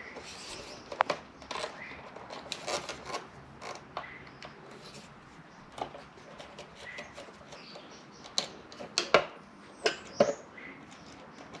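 A screwdriver undoing the positive terminal bolt on a Honda Trail 125's battery: scattered small metal clicks, taps and scrapes, with a few sharper clicks near the end.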